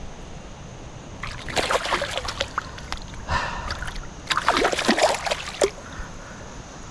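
Splashing in shallow creek water as a hooked trout thrashes while being landed by hand, in three bouts of a second or two each.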